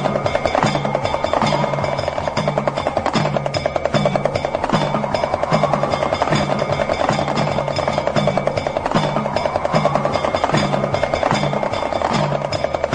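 Damru hand drum rattling in a fast, continuous roll, its beads striking the drumheads. It plays over a low note that pulses about twice a second and a sustained mid-pitched drone in a meditation music track.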